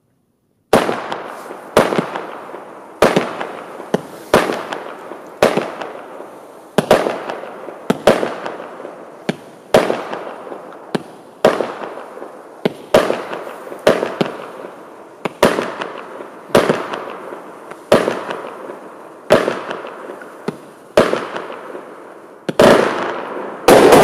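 Lesli Airshot fireworks battery firing, one sharp report about every second, each fading off in a fizzing hiss. The last shots near the end come louder and closer together.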